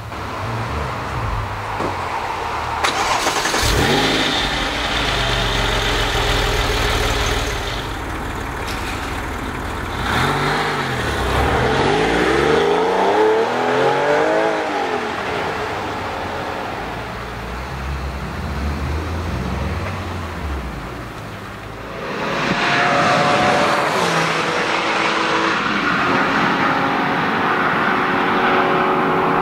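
Porsche 996 GT3 RS's 3.6-litre flat-six engine revving and accelerating hard, its pitch sweeping up and down several times, with a loud surge about two-thirds of the way through.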